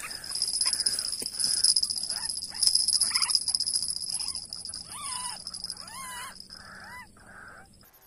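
White-breasted waterhens (ruak-ruak) calling in a run of short harsh calls. About five seconds in the calls turn into longer rising-and-falling notes. A steady high buzz runs underneath.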